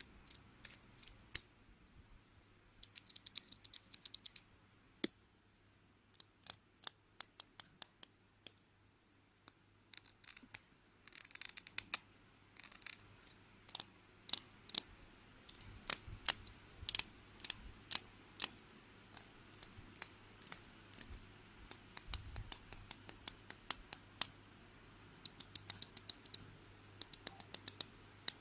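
School supplies tapped and clicked close to the microphone: a long run of sharp, irregular clicks, some in quick runs, broken by a few short scratchy passages.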